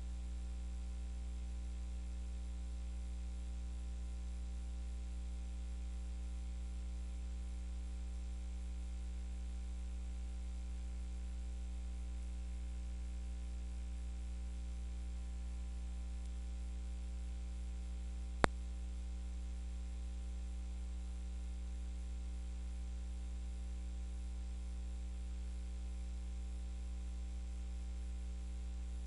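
Steady electrical mains hum with a faint hiss on an idle radio broadcast audio feed, broken once by a single sharp click about eighteen seconds in.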